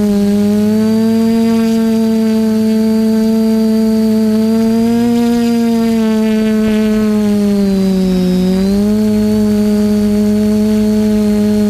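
TBS Discovery quadcopter's motors and propellers buzzing loudly, heard from its onboard camera, the pitch drifting with the throttle and dipping about eight seconds in before settling again. A faint steady high whine sits above the buzz.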